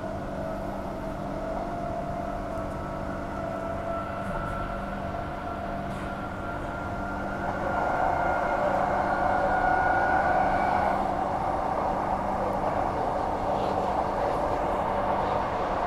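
Inside a Transperth A-series electric multiple unit on the move: steady running noise of the train with a whine from its electric drive that slowly rises in pitch as it picks up speed. About halfway through the running noise gets louder.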